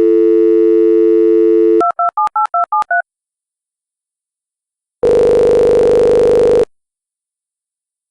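Telephone call being placed: a steady dial tone, then seven quick keypad beeps as the number is dialled. A couple of seconds later a ringing tone sounds once, about a second and a half long, as the line rings at the other end.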